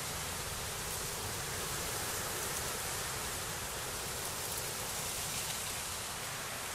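Wind blowing through a field of tall grass: a steady, even hiss, with a low, fluttering rumble of wind on the microphone.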